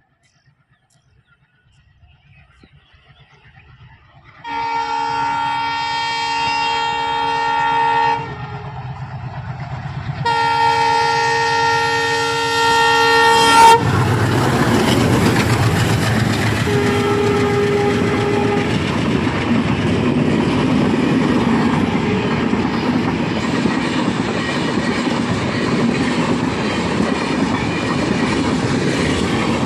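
Alco diesel locomotive approaching with its engine rumbling, sounding two long multi-note horn blasts, then passing close with a sudden rise in engine noise. Its passenger coaches follow, rolling by with steady wheel clatter over the rail joints.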